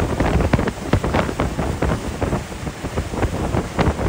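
Strong wind buffeting the microphone aboard a boat on rough, choppy water, with the water splashing and slapping in many short bursts.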